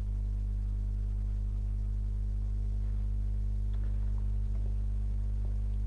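Steady low electrical hum with a stack of overtones, unchanging throughout.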